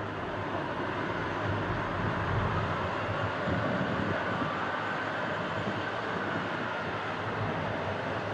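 Twin-engine wide-body jet airliner rolling out on the runway just after landing, a steady jet engine roar with a faint whine.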